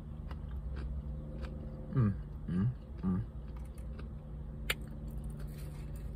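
A person chewing a mouthful of food close to the microphone, with scattered small clicks and crunches. Three short hummed "mm" sounds of enjoyment come about two to three seconds in.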